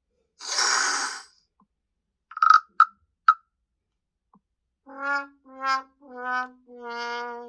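Google Pixel 7a built-in ringtone sounds played one after another: a short swish, three quick high blips, then four pitched notes, each a little lower than the last, the last held longest.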